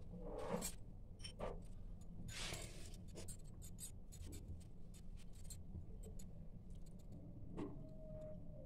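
Faint scattered taps and a brief scrape over a low steady hum. Near the end, a steel spoon is picked up and moved against the steel plate.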